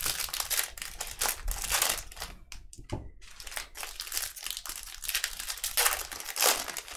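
Baseball card pack wrappers crinkling and tearing as packs are opened by hand, a quick run of short rustles.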